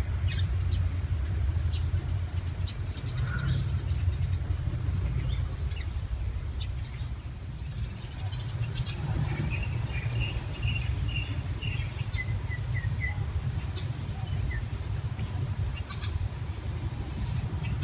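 Outdoor ambience: a steady low rumble throughout, with a small bird chirping in short runs around the middle and a few faint clicks.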